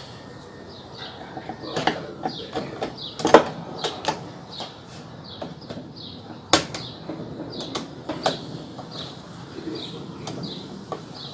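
Scattered knocks and clicks of parts and tools being handled while a washing machine's mechanism is refitted, the loudest about three and a half seconds in and again at six and a half seconds. Faint short high chirps repeat about every half second in the background.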